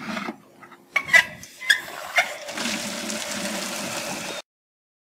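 Water being poured from a one-gallon plastic jug into a five-gallon bucket. A few knocks of the jug come first, then about two and a half seconds in a steady stream of pouring water, which stops suddenly near the end.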